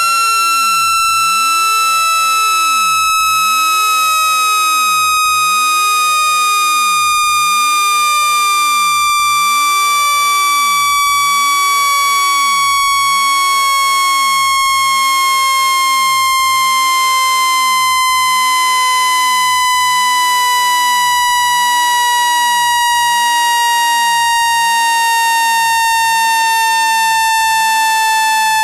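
Synthetic speaker-cleaning tone, played to shake water and dust out of a phone speaker: a loud, steady, buzzy electronic tone that slowly falls in pitch.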